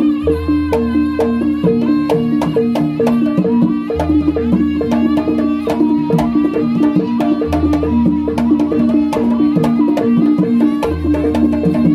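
Jaranan (kuda lumping) gamelan music playing: a fast, even beat of drum and wood-block-like strikes over repeating metallic chime notes, with a deep low gong note sounding about every three and a half seconds.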